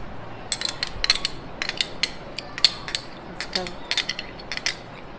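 Metal spoon clinking and scraping against a dish: quick clusters of light, sharp clicks, several a second, as cream is scooped and spread.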